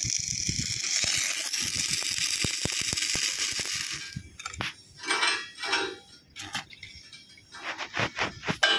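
Stick-welding arc crackling and hissing steadily as a steel pipe is welded to its flange, cutting off about four seconds in. A few scattered light metallic clicks follow.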